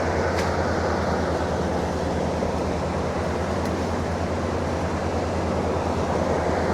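An engine running steadily at a constant speed: a low, even drone with a wash of noise over it.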